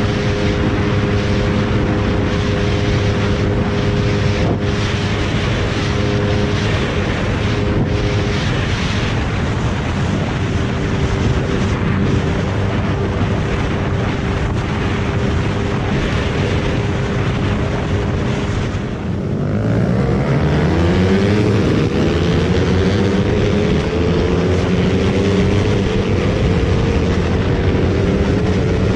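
Suzuki motorcycle engine running hard at high speed under heavy wind rush. About two-thirds of the way through it drops away briefly, then its pitch climbs steadily and levels off as the bike accelerates again.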